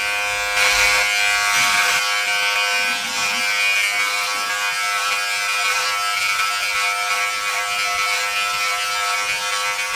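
Philips BodyGroom 7000 body groomer's trimmer end, set to the 5 mm comb, running with a steady electric buzz as it trims long chest hair. The buzz turns harsher for a moment from about half a second to two seconds in.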